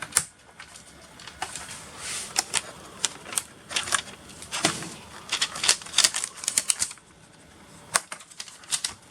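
Irregular small clicks and taps of hands working inside the open underside of an Acer Aspire 5250 laptop, handling its RAM modules and plastic cover.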